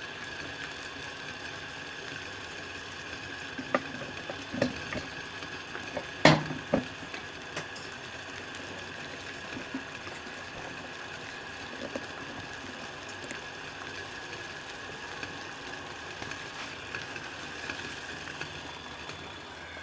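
Water heating toward the boil in a pot over a Vargo Triad alcohol stove: a steady hiss and simmer, with a few sharp knocks and clicks between about four and seven seconds in, the loudest about six seconds in.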